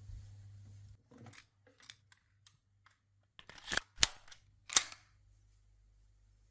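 Glock pistol being handled and readied: light scattered clicks, then four sharp metallic clacks between about three and a half and five seconds in as the slide is worked.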